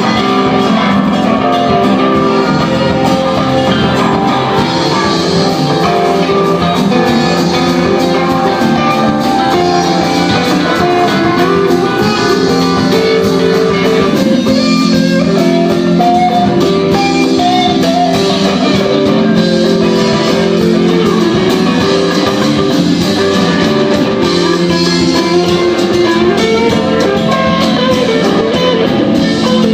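Live band playing, with guitar out front and steady, continuous instrumental music.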